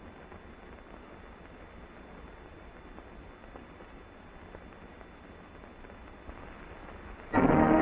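Steady hiss and low hum of an old film soundtrack with no other sound, then a little over seven seconds in, loud brass-led orchestral music starts suddenly.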